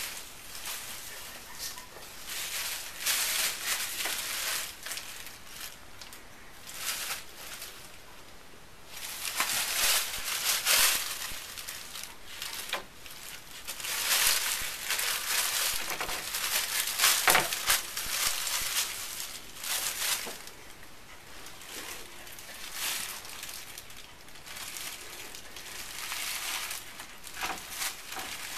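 Thin plastic shopping bag crinkling and rustling in irregular bursts as a cat wearing it around its body moves and squirms.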